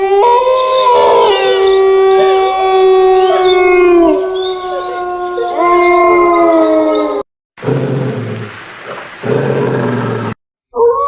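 Wolves howling: long, held howls from several overlapping voices, one falling in pitch about 4 s in. About 7 s in the sound cuts to a rougher, noisier low sound for about three seconds, and a new steady howl begins near the end.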